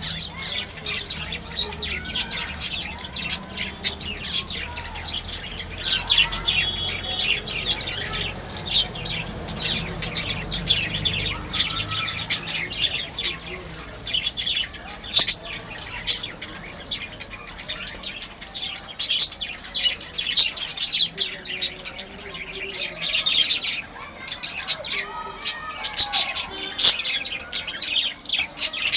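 A flock of birds chirping, with many short, sharp calls overlapping in quick succession.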